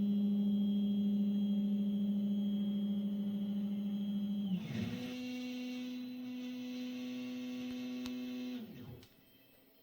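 Stepper motors of a DIY aluminium-profile gantry whining at a steady pitch. About halfway through, the pitch dips briefly and settles a little higher. Near the end it glides down and stops as the motors slow to a halt.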